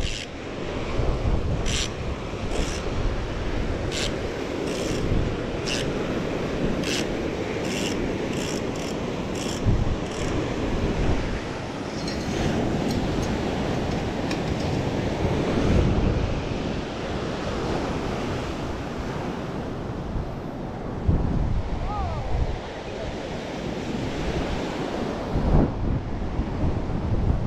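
Surf breaking on the shore and wind buffeting the microphone, with scattered light clicks in the first ten seconds or so.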